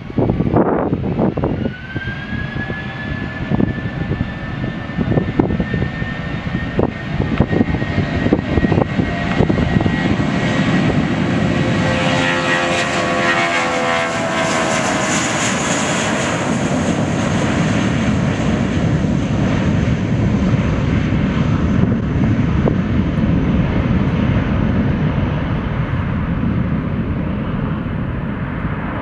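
Airbus A320's twin turbofan engines at takeoff thrust during the takeoff roll: a steady jet roar with a whine over it. It grows brighter and loudest as the airliner passes close by about halfway through, then slowly recedes as it nears liftoff.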